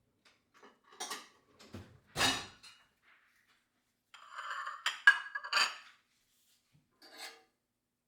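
Kitchen dishes and utensils being handled: a heavy knock about two seconds in, then a run of clinks with a ringing tone about halfway through, and one last clink near the end.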